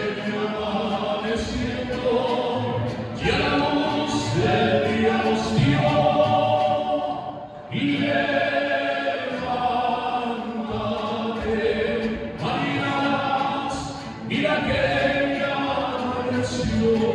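Mariachi band music with voices singing a melody in long phrases over the band's accompaniment.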